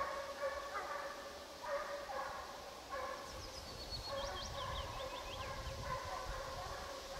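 Russian hounds giving voice on the trail, distant, in a run of long drawn-out baying notes one after another. A small songbird sings a short chirping phrase midway.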